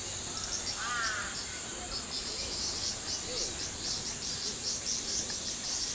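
Insects chirping: a steady high-pitched buzz with short chirps repeating about four times a second from about a second in. A brief call and faint distant voices sound underneath.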